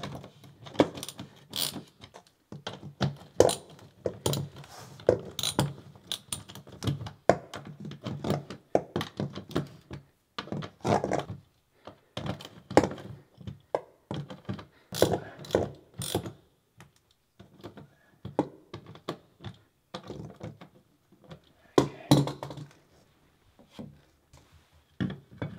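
Hand ratchet wrench clicking in quick runs with scattered knocks, as it turns the screws in a shower drain set in a foam shower pan.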